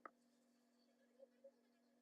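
Near silence: faint room tone with a steady low hum, a single faint click at the very start and two slight soft ticks later on.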